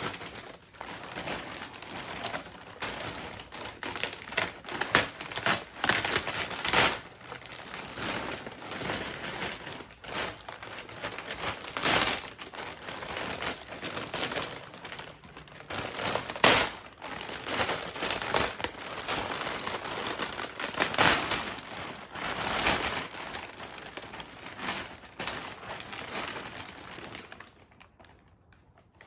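Plastic vacuum-bagging film crinkling and rustling in irregular bursts as it is handled around a carbon-fibre layup. It stops shortly before the end.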